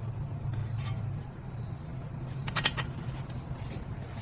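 A steady high-pitched whine with a low hum underneath, and a quick run of light clicks about two and a half seconds in.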